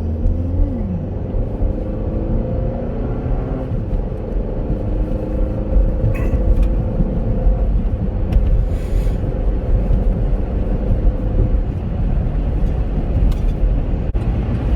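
Chevrolet Captiva SUV driving at road speed, heard from inside the cabin: a steady low rumble of engine and tyres, with a few light clicks.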